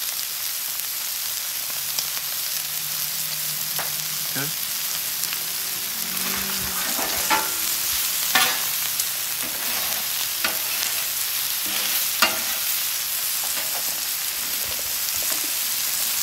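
Ribeye steaks and shrimp sizzling steadily on a hot flat-top griddle. A metal spatula scrapes and clicks sharply against the steel plate every second or two.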